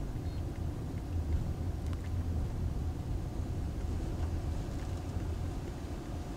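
A car driving along a paved street, heard from inside the cabin: a steady low rumble of engine and tyres.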